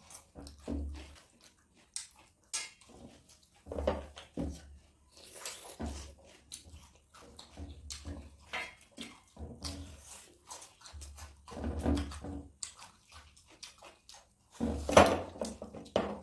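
Close-up eating sounds: wet chewing and mouth noises, with irregular clicks and small knocks. Louder moments come around a third of the way in and near the end.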